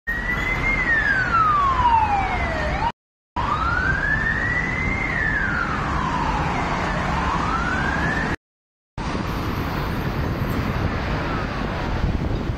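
Emergency vehicle siren wailing in slow falling and rising sweeps, about one every two to three seconds, over the steady noise of heavy road traffic. The sound cuts out to silence twice briefly; after the second break the siren has faded to a faint trace and the traffic noise remains.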